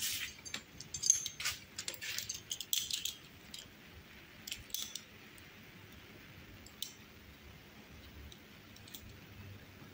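Small metal hand tools clinking and clicking while a handlebar hex bolt is being got at: a quick run of light clicks and clinks over the first three seconds, a few more scattered after.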